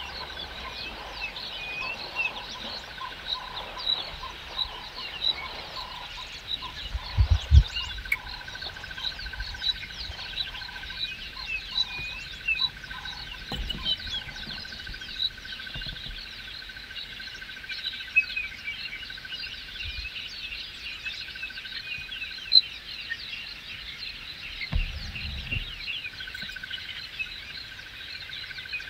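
Chorus of birds and frogs at a waterhole: many small chirps and calls over a steady high trill. There are a few low thuds, the loudest about seven seconds in.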